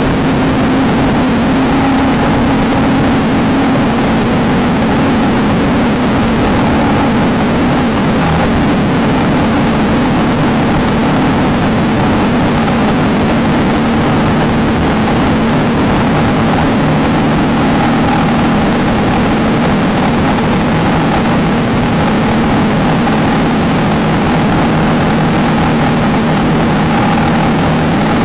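Off-road race car's engine running hard at steady revs, a constant loud drone with a broad rushing noise over it and no letting off.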